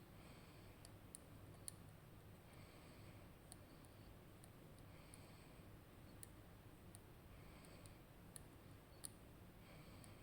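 Faint, sparse clicks of lock picks working the pins of a RUKO Garant high-security lock during picking. The clicks come singly and irregularly, about one a second.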